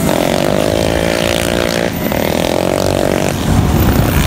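Small motorbike engine held at high revs, in two long steady runs with a brief break about two seconds in; near the end a lower, louder engine rumble takes over.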